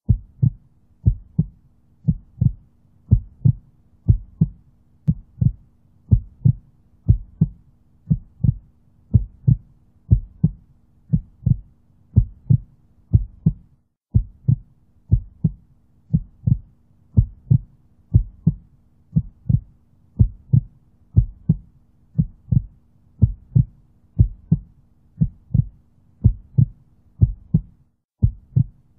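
Heartbeat sound, a low double thump (lub-dub) repeating evenly about once a second, with a faint steady hum underneath.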